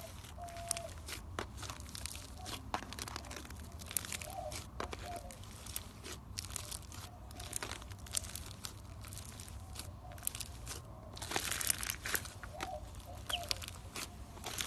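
Slime being squished and worked, giving irregular crackling and small clicking pops, denser near the end.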